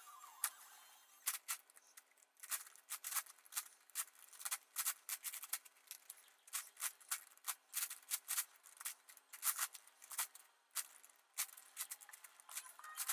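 Plastic layers of an 11x11x11 puzzle cube clicking and clacking as they are turned by hand, an irregular run of sharp clicks that grows much denser after about two seconds.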